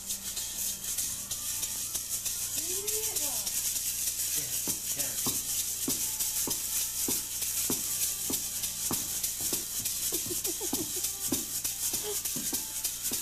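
Plastic toy maraca rattles shaken steadily, a continuous high rattling hiss, with short voice sounds breaking in from about four seconds on.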